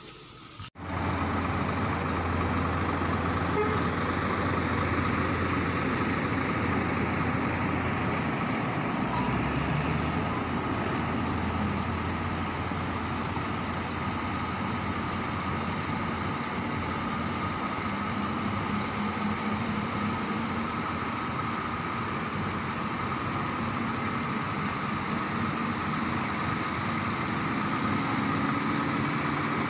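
Heavy diesel engines of coal haul trucks with tipper semitrailers running steadily, a low even drone with a fainter steady hum above it; it sets in abruptly under a second in.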